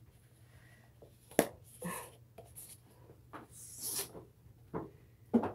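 Faint scattered rustles and clicks of a cat moving about with its collar on, with a sharper click about a second and a half in and a brief rustle near four seconds.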